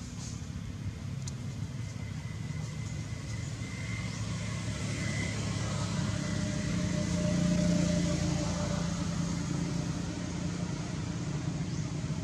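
Low engine rumble of a motor vehicle over a steady hiss, swelling to its loudest about eight seconds in and then easing off.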